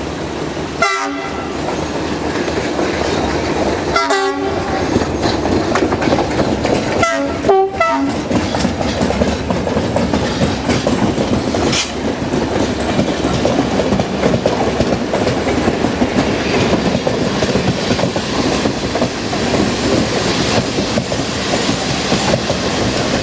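A train horn sounds three short blasts, then a CFR Class 65 (LDE2100 EGM) diesel-electric locomotive and its passenger coaches pass close by, wheels clattering rhythmically over the rail joints.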